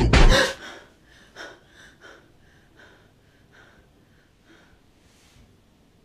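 A woman's loud, sudden gasp, followed by a series of fainter breaths that fade out over the next few seconds.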